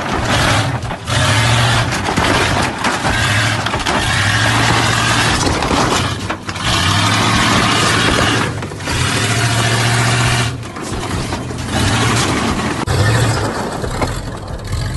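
Lifted pickup truck's engine revving hard in repeated bursts of one to two seconds, with short drops between them, as it crawls up a steep ramp on large off-road tyres.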